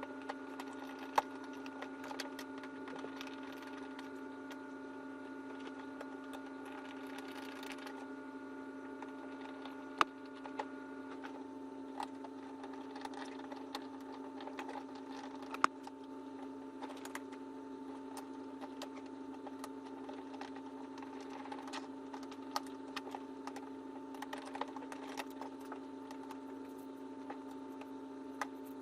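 Scattered light clicks and a few sharper taps from hands working small screws into the plastic body parts of a ride-on toy car, over a steady background hum.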